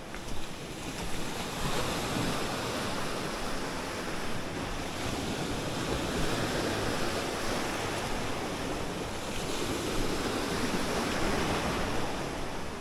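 Sea waves washing against a rocky shore in a steady rush that swells and eases, louder about two seconds in and again in the second half.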